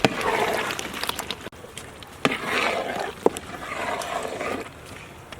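Ladle stirring thick curry gravy in a cooking pot: a scraping, sloshing sweep about every two seconds, with a few light metal knocks.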